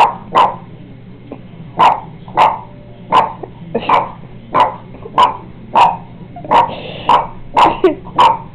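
A Boston terrier barking repeatedly at a painted portrait of another Boston terrier, about fourteen short, sharp barks, often in quick pairs. This is the kind of alarm barking a dog gives at what it takes for a strange dog.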